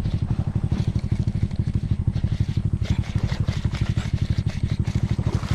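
Motorcycle engine running steadily, a rapid even low pulsing of about a dozen beats a second.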